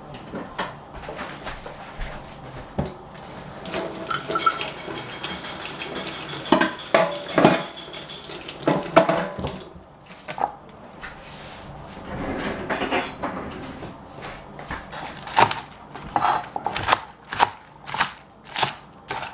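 Kitchen knife chopping green onions on a plastic cutting board: a quick run of sharp chops in the last few seconds. Before that, scattered clatter and knocks of kitchen things being handled.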